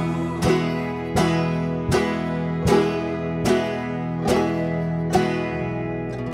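Background music: an acoustic plucked-string instrumental, single notes or chords struck about every 0.8 seconds and left to ring, the last one ringing out near the end.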